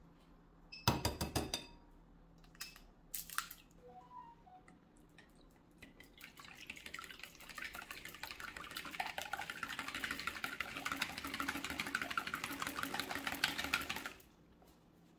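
Hand whisk beating yoghurt, egg and flour in a glass bowl: rapid scraping strokes build from about six seconds in and stop suddenly near the end. Earlier there are a few sharp clicks.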